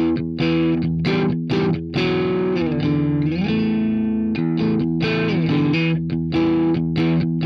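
Background rock music: a distorted electric guitar riff played in short rhythmic stabs, with notes sliding in pitch about three seconds in.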